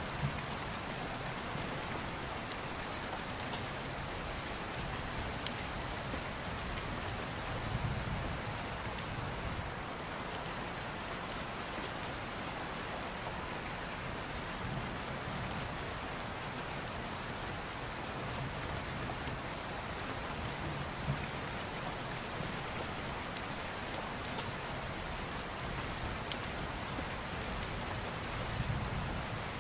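Steady rain falling: an even hiss with occasional sharp ticks.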